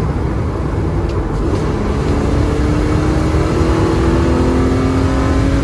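BMW E46 330's straight-six engine pulling under acceleration while driving, its pitch rising slowly from about two seconds in, over a steady low road and engine rumble.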